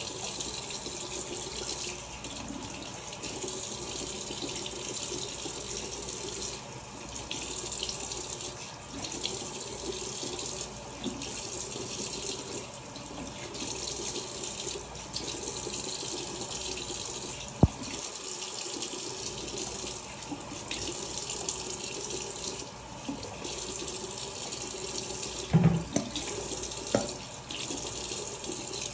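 Bathroom sink tap running steadily while hands splash water onto a face to rinse off a scrub. A sharp click a little past the middle and a few knocks near the end.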